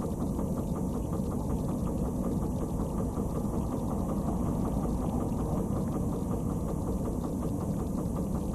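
Tow truck's engine idling steadily, a low even rumble heard inside the cab.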